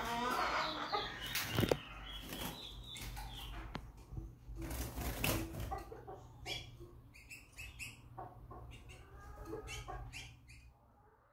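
Small seedeater finches moving about a wire cage: repeated wing flutters and light knocks, with clusters of short high chirps in the second half.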